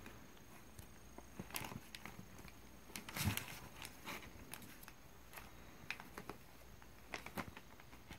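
Kittens' paws scuffling and scratching on newspaper and cardboard as they play-fight, faint scattered scrapes and taps with a louder thump about three seconds in.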